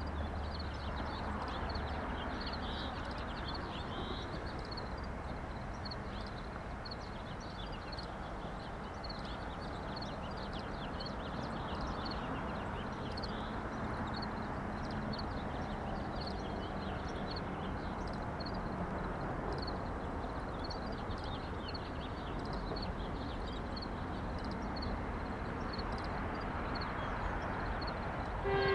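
Outdoor trackside ambience: a steady, even background noise with small high chirps repeating throughout, and a low hum that fades out about two seconds in. A train horn starts right at the very end.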